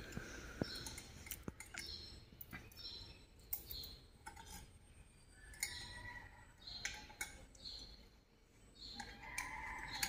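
Faint scattered clicks and light metal clinks of a small bolt and safety chain being handled and fitted onto a ceiling fan's capacitor-housing bolt.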